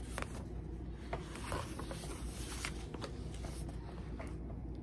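Faint rustling with a few light clicks over a steady low hum.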